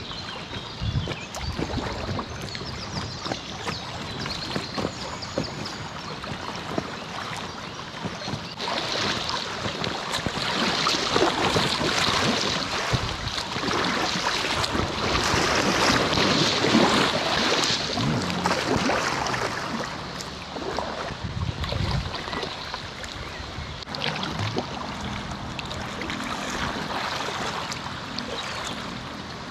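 Water splashing and rushing around a packraft as it is paddled along a river, with short splashes from the paddle strokes. The water grows louder for about ten seconds in the middle.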